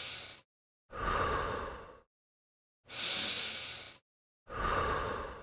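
A person breathing deeply in and out, four breaths of about a second each with short silent gaps between them; a hissier breath alternates with a lower, fuller one. It is a demonstration of the breathing rhythm for the exercise.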